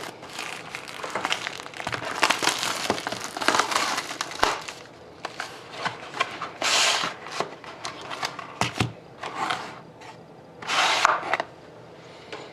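Plastic wrapping crinkling and tearing as a sealed trading card box and its pack are opened by hand. There is a dense stretch of crackling for the first few seconds, then several separate short rips.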